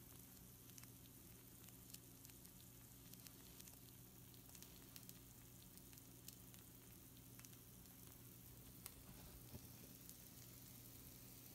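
Pizza rolls on a hot baking sheet sizzling faintly: a soft steady hiss with scattered small pops and crackles. A steady low hum runs underneath.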